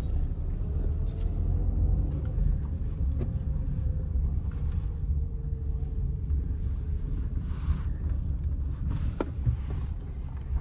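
Low, steady rumble of a car's engine and road noise heard from inside the cabin.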